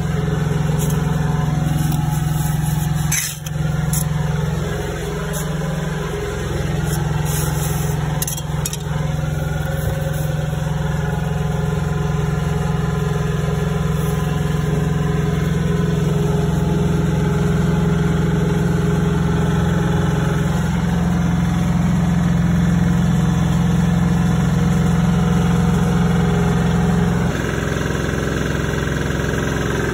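An engine running steadily at a constant pitch, with a few sharp knocks about 3 seconds and 8 seconds in; the engine note shifts slightly near the end.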